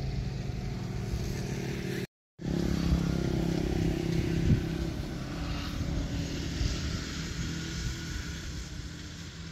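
A small engine running with a steady low hum, cut off for a moment about two seconds in, then slowly fading toward the end.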